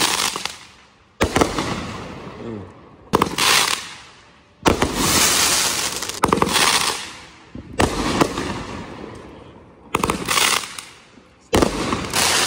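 Aerial fireworks going off: about eight sharp bangs spaced roughly a second and a half apart, each one trailing off over about a second before the next.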